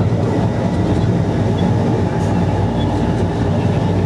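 Inside the carriage of an MTR East Rail Line MLR electric train pulling out of a station: a steady, loud low rumble of the running gear and wheels on the track.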